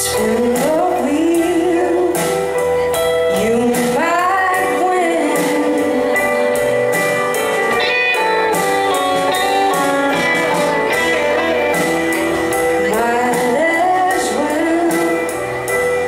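Live band playing a blues-rock song: a lead guitar line with bending, gliding notes over steady drums and strummed guitars.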